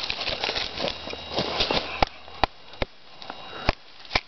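A wooden baton knocking on the spine of a forged parang, driving the blade into a knotty oak branch to split it. Five sharp knocks come in the second half, about half a second apart.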